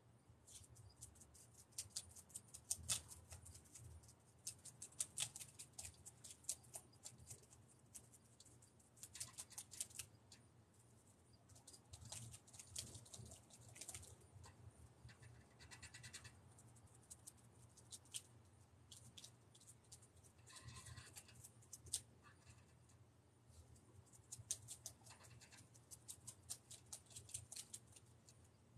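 Faint, quick scratching and tapping of a hand-held tool on a spray-painted board as paint is worked on, coming in clusters, over a low steady hum.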